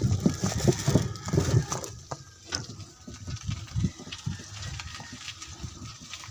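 Irregular low thumps and rustling from walking along a dirt lane with the camera in hand, footsteps and handling noise, heavier in the first couple of seconds and then fainter, with one sharp click about halfway through.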